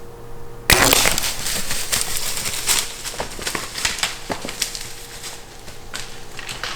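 Whitetail deer bolting through dry leaves and brush just after being shot with a bow. A sudden crash about a second in, then a run of crunching leaves and snapping twigs that thins to scattered cracks.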